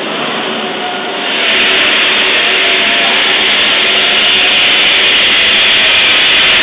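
Rotary swaging machine for cartridge heaters running with a steady mechanical hum. About a second and a half in it turns louder and harsher, with a hiss on top, while a thin rod is held in its spinning dies.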